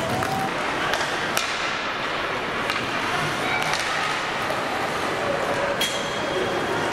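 Youth ice hockey play in a rink hall: a steady mix of spectators' and players' voices and shouts, with a few sharp knocks of sticks and puck on the ice. The loudest knocks come about a second and a half in and again about six seconds in.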